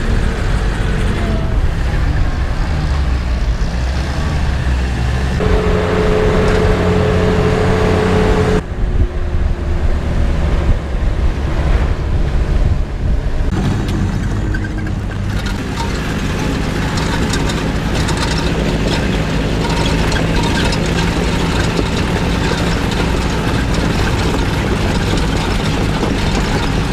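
Old Willys Jeep's engine running under load as it drives up a rough trail, heard from inside the vehicle. About five seconds in, a steady whine joins for about three seconds, then cuts off abruptly.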